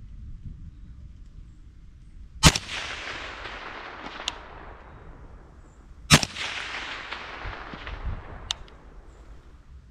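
Two single shots from a Knights Armament M110 SASS semi-automatic 7.62 mm rifle, about three and a half seconds apart, each followed by a long echo dying away over two to three seconds. A faint sharp tick follows each shot a couple of seconds later.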